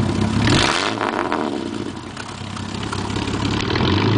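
IKA Torino GS straight-six engine running. It revs up about half a second in, falls back by about two seconds, then picks up again near the end.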